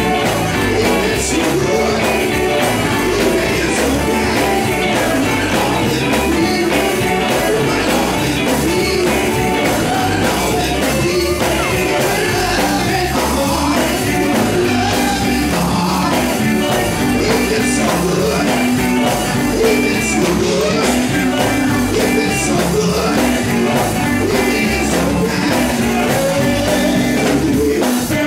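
Live gospel group performing in a church: a lead singer on microphone with backing singers, over a band with guitar, loud and continuous.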